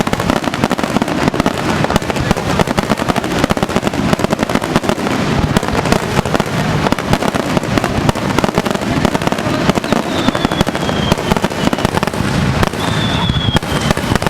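Fireworks display going off in a dense, continuous barrage of bangs and crackling, with a few thin falling whistles in the last few seconds.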